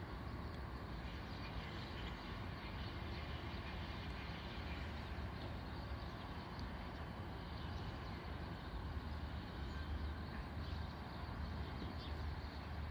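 Steady low rumble of urban background noise, even throughout with no distinct events.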